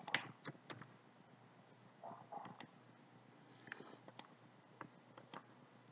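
Faint computer mouse button clicks, several in quick pairs, as cut points are placed on a 3D mesh.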